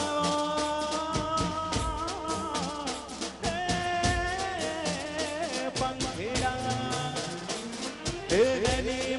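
Live Gujarati garba music: a male singer on microphone over a steady beat from a row of stage drums.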